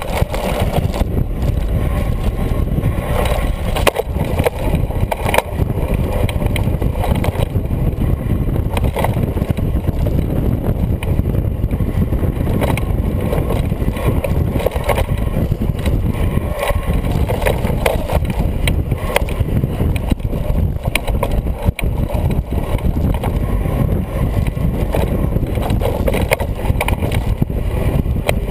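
Wind buffeting the microphone of a camera mounted on a fat-tire mountain bike riding fast down a dirt trail. A steady low rumble runs throughout, with small knocks and rattles from the bike going over the ground.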